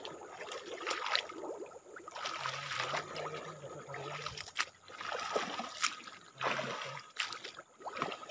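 Water sloshing and swishing around legs wading knee-deep through a stream, in irregular strides.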